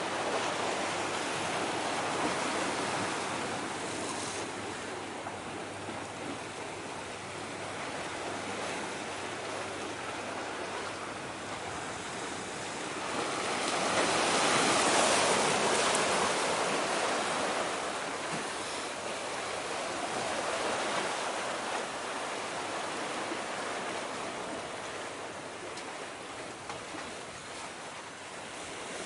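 Rushing seaside noise of waves washing along a breakwater, with some wind. It swells to a louder surge about halfway through, then eases off.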